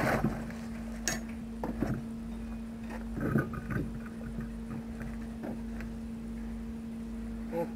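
Scattered metal clanks and knocks as a steel pry bar and a heavy dual truck wheel are worked by hand, the loudest at the start and about three and a half seconds in, over a steady hum.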